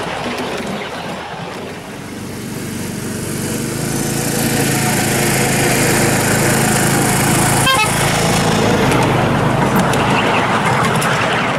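A miniature railway locomotive's small engine running as it approaches and passes, growing louder, with the train rumbling over the track. There is a short sharp sound about two-thirds of the way through.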